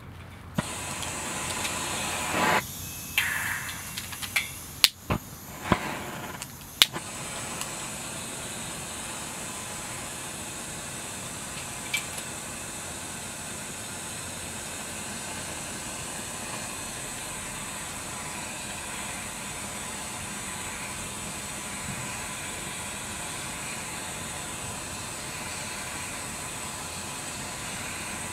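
Takei 501A kerosene pressure burner being lit: several sharp clicks and short flaring surges in the first seven seconds or so, then the lit burner settling into a steady hiss.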